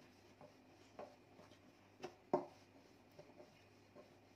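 Wooden rolling pin rolling out dough on a steel plate, with a few soft knocks of the pin and plate; the loudest come as a pair a little after two seconds in.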